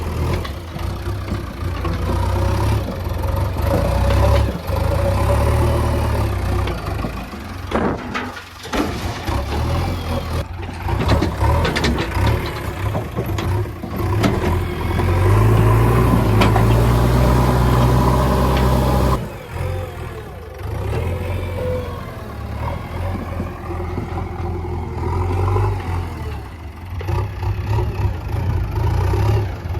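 Diesel engine of a JCB 3DX backhoe loader running and revving as it digs and loads, loudest about halfway through, then dropping back sharply about two-thirds of the way in.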